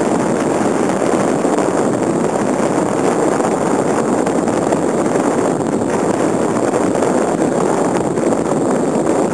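Steady rush of wind on the microphone mixed with water splashing along the hull of a radio-controlled model sailboat heeled over in choppy water.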